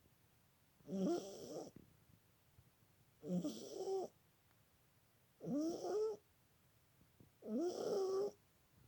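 A domestic cat snoring: four snores about two seconds apart, each a short rasp that rises in pitch. The owner puts the snoring down to respiratory problems.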